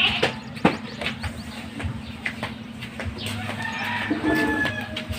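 A chicken calling once, a drawn-out call of over a second starting about three seconds in, over a steady low hum and scattered light clicks.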